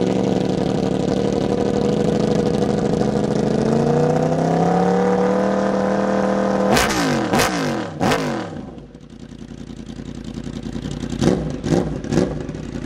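Yamaha R1 sportbike's inline-four engine running while stationary. Its pitch rises and holds about four seconds in, then comes three sharp throttle blips that fall back quickly. The engine settles quieter at idle, then gives three more quick blips near the end.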